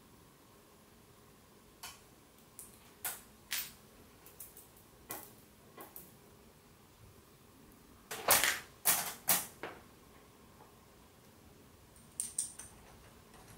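Small steel engine parts clicking and clinking in the hands as a miniature crankshaft and its connecting rods are handled and fitted together. Scattered light clicks, with a louder cluster of metal clinks about two-thirds of the way through and a few more near the end.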